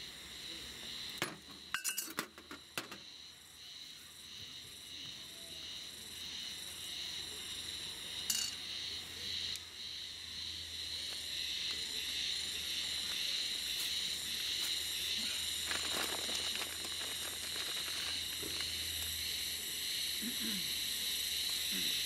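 Clinks of a glass oil bottle and a spice shaker being handled on a metal camp table: a cluster of sharp clinks about two seconds in, another near eight seconds and a few near sixteen. A steady high-pitched drone runs underneath.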